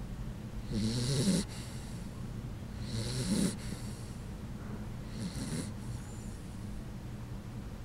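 Puggle snoring in its sleep: three snores about two seconds apart, the first loudest and the last faintest.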